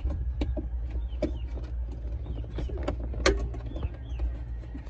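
Scattered clicks, knocks and rustles of RCA cable and plastic trim being handled and fed through a hole in the truck cab, the sharpest knock about three seconds in. Underneath is a steady low hum, with birds chirping now and then.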